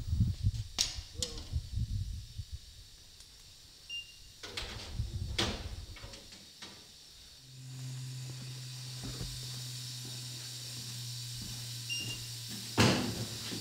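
Metal door of a gas pressure regulating station kiosk being unlatched and swung open, with several sharp clicks and clunks. Then a steady low hum with a faint hiss from inside the station, and a loud knock near the end.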